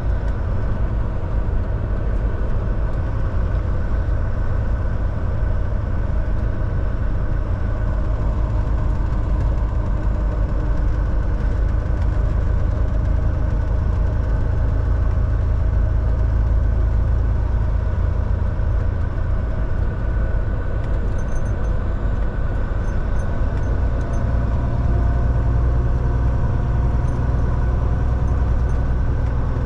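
Volvo semi-truck's diesel engine running with a steady low rumble, its note shifting slightly about two thirds of the way in.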